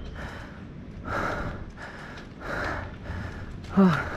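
A mountain biker's breathing close to the helmet camera while riding, a breath about every second and a half, with a short loud grunt just before the end.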